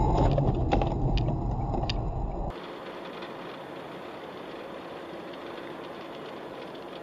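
Car driving noise picked up by a dashcam. A loud low road-and-engine rumble carries a few sharp knocks in the first couple of seconds, then there is an abrupt cut to quieter, steady road noise.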